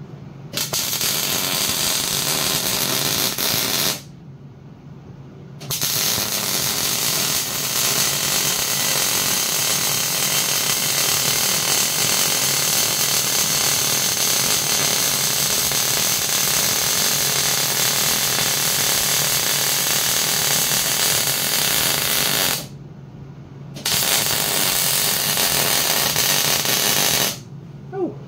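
MIG welder arc crackling steadily while running seam welds on steel plates, in three runs: a short one of a few seconds, a long one of about seventeen seconds, and a short one near the end.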